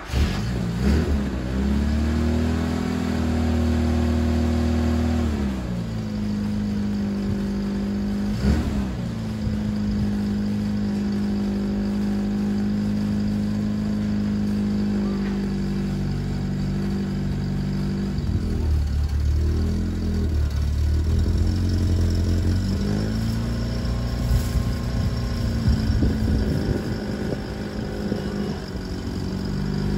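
Toyota Publica pick-up truck's engine running at raised, steady revs. The engine speed falls and climbs back up several times, once briefly about eight seconds in and a few times in the second half.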